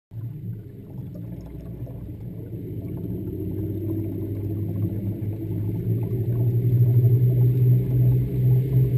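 Twin outboard motors running and throttling up, with water rushing around the hull. The sound grows steadily louder as the boat gets under way.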